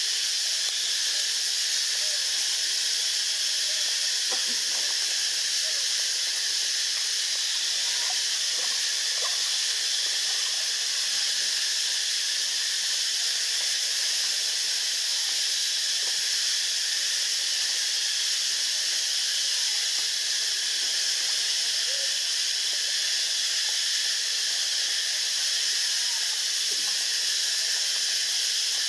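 A steady, unbroken high-pitched hiss at an even level, with faint short chirps now and then beneath it.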